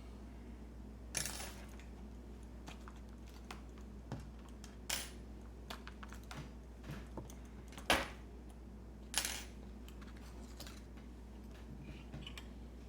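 Steel lock pick and tension tool clicking and scraping against the pins of a Sargent Keso 12-pin dimple lock: four sharp metallic clicks spread over several seconds with fainter ticks between, as pins are worked in an attempt to float them out of a false set.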